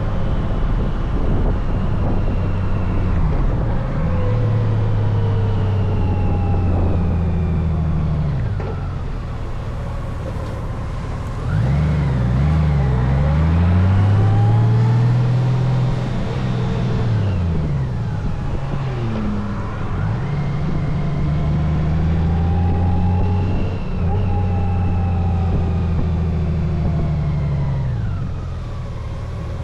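Honda Gold Wing motorcycle engine under way on the road, its pitch climbing and dropping again and again as it accelerates and shifts through the gears, over steady road and wind noise.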